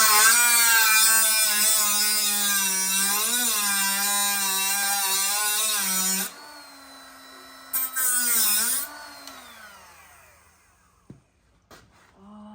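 Electric power tool cutting off metal parts. The motor's pitch sags under load with a loud grinding hiss for about six seconds, it runs free for a moment, then takes a second short cut near 8 s before the motor winds down.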